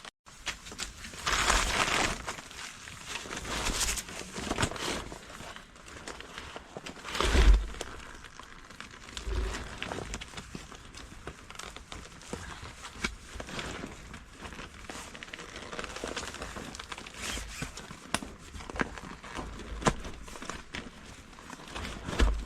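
Irregular rustling and crinkling with scattered clicks and thumps; the loudest thump comes about seven seconds in.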